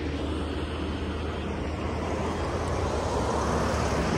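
Steady vehicle noise: a low drone under a rushing hiss, growing a little louder near the end.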